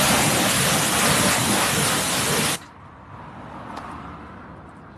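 Pressure washer jet spraying a car's alloy wheel: a loud steady hiss of water that cuts off suddenly about two and a half seconds in.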